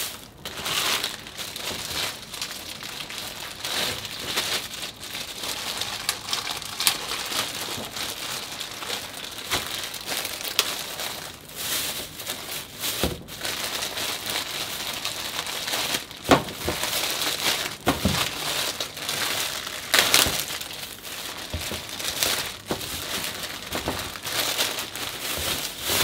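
Thin plastic produce bags rustling and crinkling continuously as vegetables are put into them by hand, with occasional sharp clicks.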